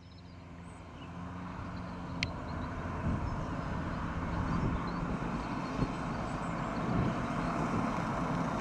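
A car driving along a road toward the listener, its engine and tyre noise growing louder over the first few seconds and then holding steady.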